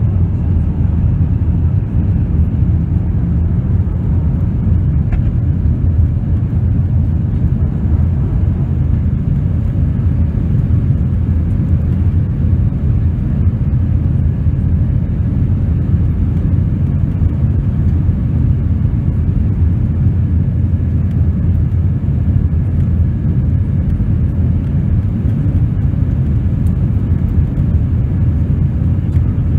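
Cabin noise of a jet airliner climbing just after takeoff, heard from a window seat: the engines at climb power and the rushing airflow make a steady, low-pitched rumble that does not change.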